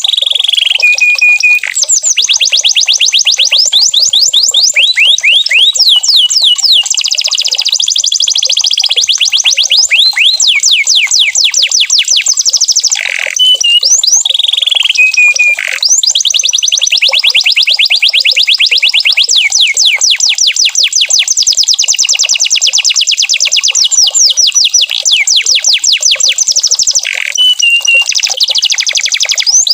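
Domestic canary singing continuously: long trills of very rapid, repeated pitch sweeps, changing from one rolling phrase to the next, with a few short held whistles and brief breaks.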